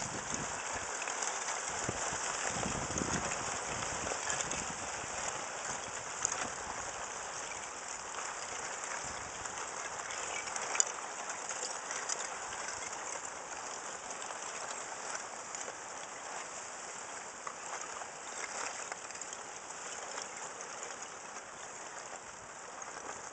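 Spring lake ice breaking up and moving out: the loose ice crystals shift and grind together in a steady crackle of many small ticks. Near the middle there is one sharper click.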